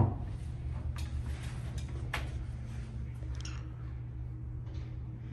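Quiet indoor room tone: a steady low hum with a few faint, sharp taps about one and two seconds in.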